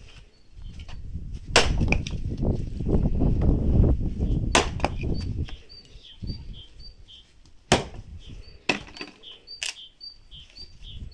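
An axe splitting firewood on a chopping block: about five sharp cracks as the blade strikes and splits the wood, a few seconds apart at first and quicker near the end. A low rumble runs through the first half, and a small bird chirps repeatedly in the background.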